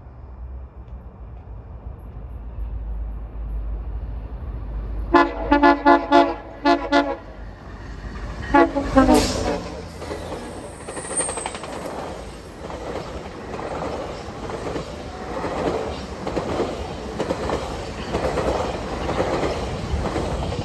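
Train horn sounding a rapid string of short blasts as a train draws near, then two more short blasts. The train then passes close by with a steady rumble and rhythmic wheel clatter.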